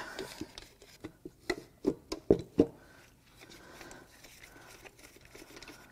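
A series of short knocks and clunks over the first two to three seconds as a stuck Ford 2.7L EcoBoost V6 cylinder head is worked loose by hand on the block, then faint handling noise.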